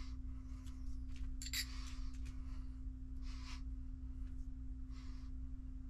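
Hands handling small plastic RC kit parts and a metal hinge pin: a few brief clicks and scuffs, the sharpest about a second and a half in, over a steady low hum.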